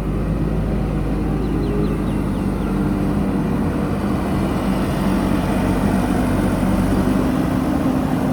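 Diesel engine of heavy construction machinery running steadily at a low, even pitch.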